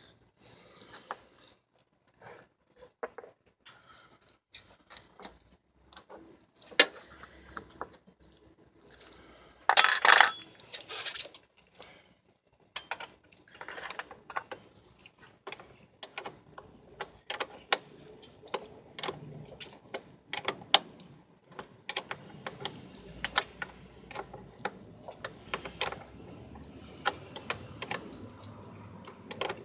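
Metal hand tools and battery hardware clicking and clinking in many small, irregular taps as the battery cables and clamps are fastened, with a louder rustling burst about ten seconds in.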